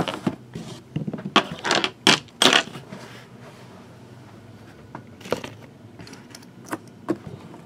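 Shrink-wrapped cardboard trading-card boxes being handled and set down on a tabletop: a run of sharp knocks and scuffs in the first few seconds, then only a few faint taps.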